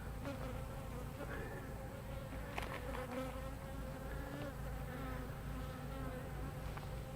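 Swarm of honey bees buzzing around an opened hive: a steady, many-voiced hum that wavers slightly in pitch, with a faint click about two and a half seconds in.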